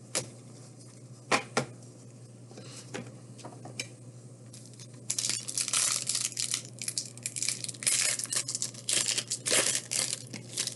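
A few sharp clicks of trading cards being handled, then from about five seconds in, some five seconds of crinkling and tearing as a trading card pack wrapper is ripped open.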